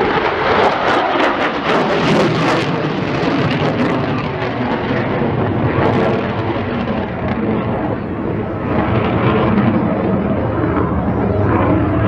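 Jet noise from an RAF Eurofighter Typhoon's twin engines, loud and steady, with a crackling rasp in the first couple of seconds.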